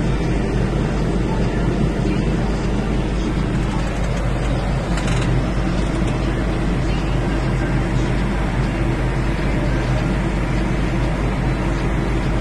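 Cicoria HD1270 big square baler and the tractor driving it running steadily at work, with a short knock about five seconds in.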